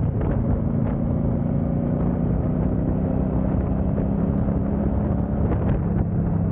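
A car driving at a steady speed: an even engine drone with road and tyre noise, and a few faint ticks near the end.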